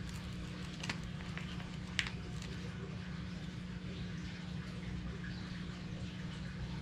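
Steady low hum with a faint hiss, broken by a few light clicks, the sharpest about two seconds in.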